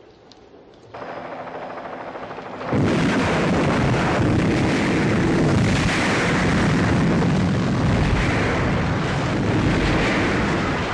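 Film sound effects of an explosion in a burning building: a low, quieter stretch, then about three seconds in a sudden loud blast that carries on as dense, continuous noise to the end.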